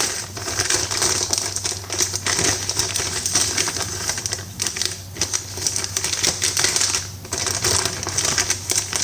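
Irregular clicking and rustling of packaging and metal mounting parts being handled and unwrapped from the box.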